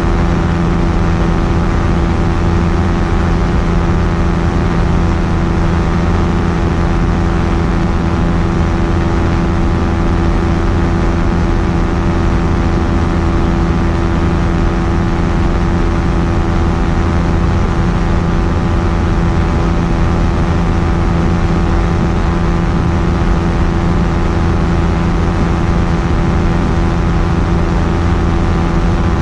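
Quicksilver Sport 2S ultralight aircraft's engine running at a constant speed, a steady drone with no change in pitch.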